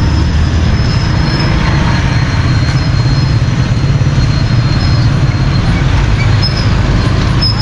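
Steady, loud low rumble of a vehicle in motion with road noise, heard from on board the moving vehicle.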